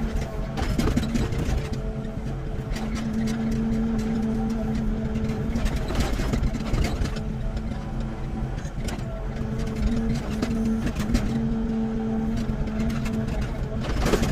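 Excavator's diesel engine running while digging. Its steady hum fades and returns several times as the load changes, with frequent knocks and clanks of the machine at work.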